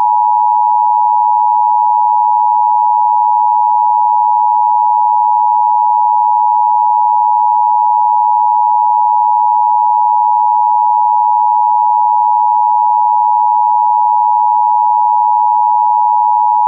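Emergency Alert System attention signal: two steady, high electronic tones sounded together as one loud, unbroken alarm tone.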